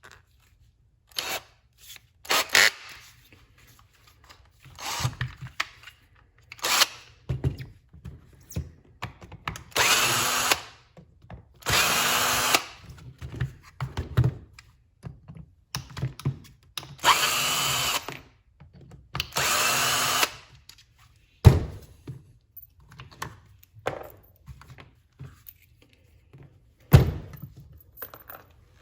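A small cordless power driver running in four short bursts of about a second each, backing out the Torx screws of an impact driver's housing. Between the bursts, clicks and knocks of small parts and tools being handled.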